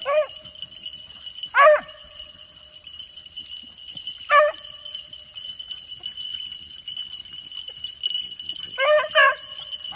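Beagle giving five short, sharp barks, spaced out with two in quick succession near the end: a hound giving tongue while working a rabbit's scent. A steady high-pitched tone runs underneath.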